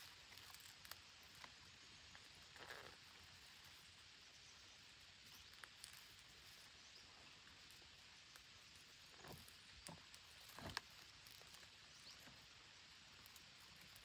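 Near silence: faint outdoor hiss with a few brief soft rustles and clicks, the sharpest about three-quarters of the way through.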